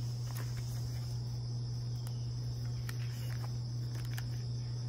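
Steady low hum with a constant high-pitched tone above it, and a few faint soft clicks as the pages of a spiral notepad are turned.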